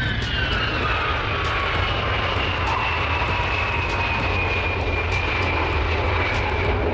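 Ilyushin Il-76 four-engine jet transport landing and rolling out on the runway: a steady engine rumble with a high whine that falls slowly in pitch.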